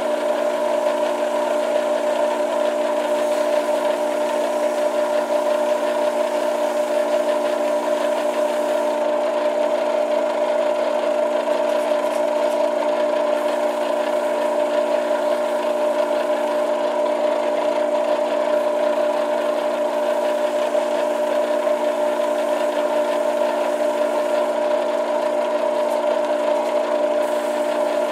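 Small benchtop metal lathe running steadily at speed, its motor and drive giving a constant whine of several steady tones over a rushing hiss, while a micro-mesh pad is held against the spinning acrylic pipe stem to polish it.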